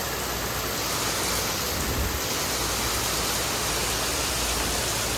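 Heavy, steady rain pouring down, an even hiss with no let-up.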